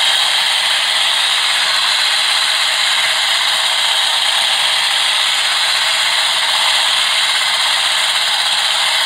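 Electric stick blender with a balloon-whisk attachment running steadily at speed, its motor whirring and the wire whisk rattling in a stainless steel bowl as it beats a foamy egg-and-sugar mixture for sponge cake.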